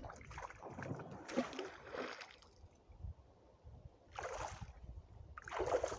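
Water splashing and sloshing in irregular bursts: a long stretch over the first two seconds, then shorter splashes about four seconds in and near the end.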